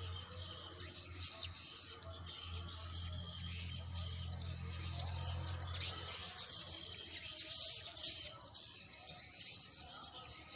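A colony of edible-nest swiftlets twittering inside a swiftlet house: dense, rapid, high-pitched chirps and trills, with a low steady hum under them that fades about halfway through.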